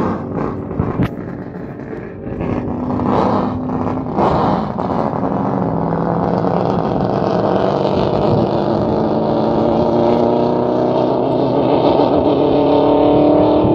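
A race car's engine accelerating down the course in one long pull, its pitch rising slowly and its sound growing louder over the second half. A few sharp knocks near the start.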